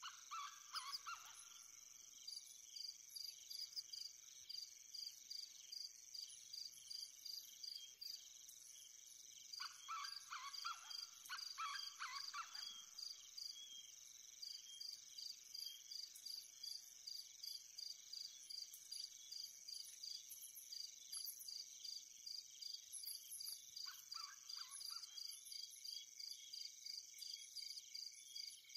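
Faint outdoor insect chorus: a steady high buzz with crickets chirping in an even pulse throughout. A bird calls in short runs of notes three times, near the start, in the middle and near the end.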